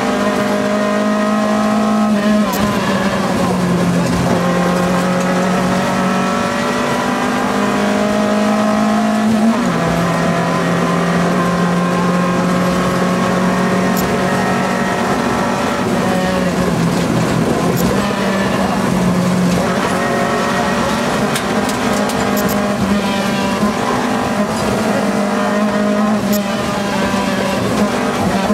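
Citroën AX rally car's engine driven hard, heard from inside the cabin. The engine note climbs under acceleration and drops back at each gear change, several times over.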